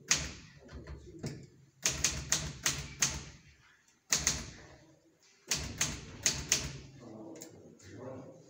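A series of sharp knocks, each with a short ring. A single knock comes first, then a quick run of four about three a second, another single knock, and a second run of four.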